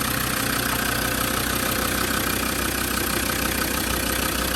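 Land Rover Td5 2.5-litre five-cylinder turbodiesel in a 2006 Defender 110 idling steadily, chuntering away as it is supposed to.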